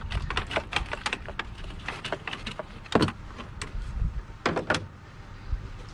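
Ratchet wrench clicking with metal clinks as a 14 mm socket on an extension works a starter mounting bolt in the engine bay, with a couple of louder knocks about three and four and a half seconds in.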